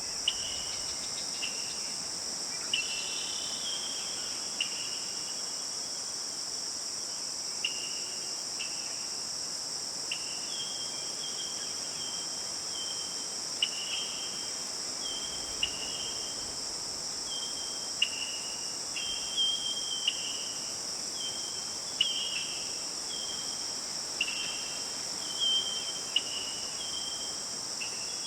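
Steady, high-pitched chorus of insects such as crickets in a forest at night, with short high notes, some falling slightly in pitch, breaking in about once a second.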